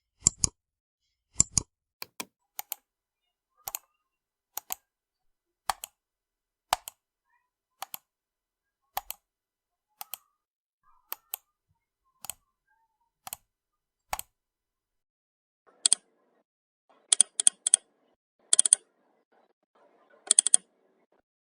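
Computer mouse button clicks, each a quick press-and-release pair, about once a second with silence between. About three quarters of the way through a different, brighter click takes over, coming in quick double and triple clicks.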